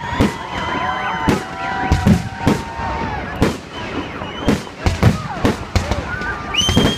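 Victory Day fireworks salute: shells bursting overhead in a rapid series of bangs, about two a second, with gliding whistling tones over them.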